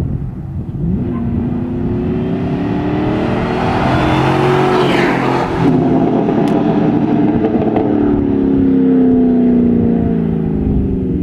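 Pickup truck's 4.8-litre V8 through a Flowmaster 40 Series exhaust, approaching and passing at speed about five seconds in. It then drops from fourth into second and revs hard as it pulls away, with a short tire chirp.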